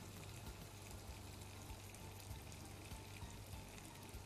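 Boiled chicken pieces frying faintly with tomato paste and vegetables in a cooking pot, a light scattered crackle over a steady low hum.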